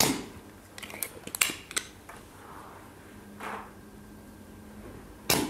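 Spring-loaded desoldering pump (ZEL OD-25 Turbo) firing: a sharp snap of the released plunger with a short suction hiss that fades quickly, as it pulls molten solder off a circuit-board joint through its Teflon tip. A few small clicks of handling follow, and another sharp snap comes near the end.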